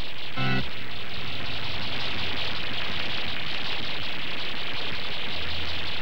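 Steady hiss of an old film soundtrack, with one short, low buzzy tone about half a second in.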